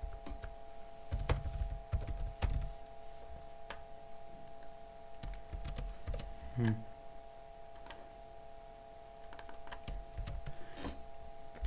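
Computer keyboard typing: irregular keystrokes and clicks in short clusters, over a steady faint hum.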